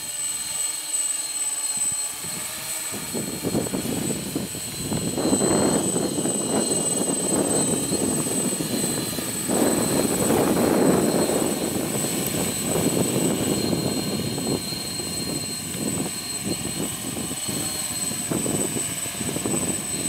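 Heavy X8 coaxial octocopter's electric motors and propellers running steadily as it holds position in loiter mode, with gusts of strong wind buffeting the microphone, loudest about five and ten seconds in.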